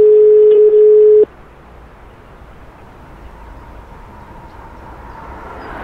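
A steady single-pitched electronic tone, about a second and a half long, that cuts off sharply, followed by a faint hum that slowly grows louder.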